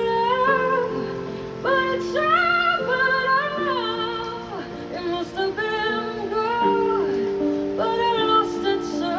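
Music: a woman singing a gliding melody over held chords.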